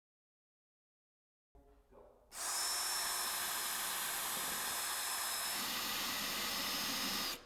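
Power drill running steadily with a high motor whine, driving in a fastener. It starts about two seconds in, its sound deepens a little about two-thirds of the way through, and it stops just before the end.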